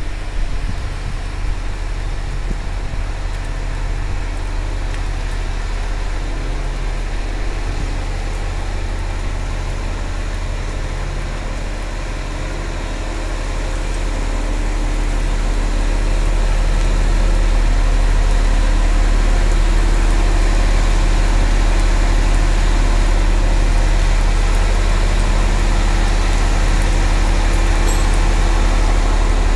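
Engine of a large marina boat-lifting forklift running steadily with a deep hum while it carries a cabin cruiser on its forks, getting louder from about twelve seconds in and then holding level.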